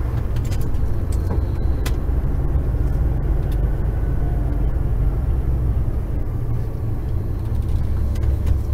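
Truck engine and road noise heard from inside the cab: a steady low rumble, with a few short sharp clicks in the first two seconds.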